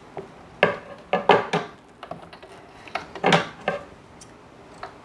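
Handling noises at a sewing machine after stitching has stopped: a few short clattering knocks and rustles in two or three clusters as the fabric is drawn out from under the presser foot and the thread pulled free.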